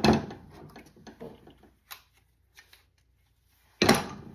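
Metal hand tools being handled and set down: a sharp knock, a spell of rattling and a few small clicks, then another knock near the end.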